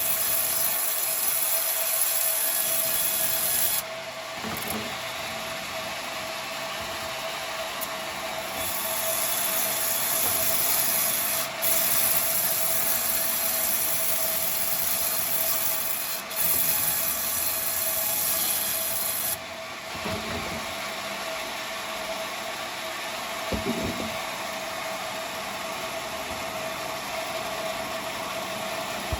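Sawmill bandsaw running with a steady whine while its blade cuts through coconut timber. The high cutting hiss drops away about four seconds in, comes back for about ten seconds, then fades out past the middle as the saw keeps running.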